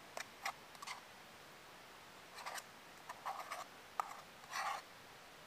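A utensil scraping and clicking against the inside of a metal mug as food is scooped out: a string of short scrapes, with one sharper click about four seconds in.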